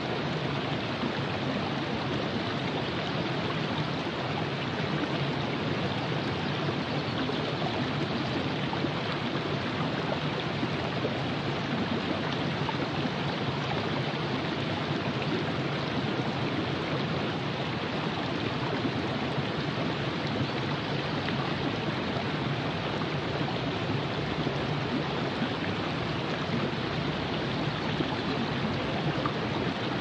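Virgin River flowing: a steady, even rush of water.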